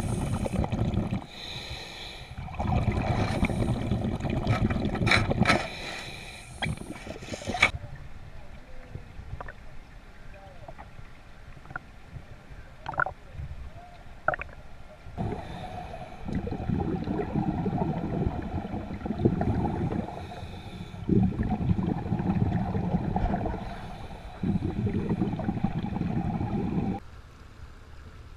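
A scuba diver breathing through a regulator underwater: loud rushes of exhaust bubbles lasting a few seconds each, with quieter stretches between.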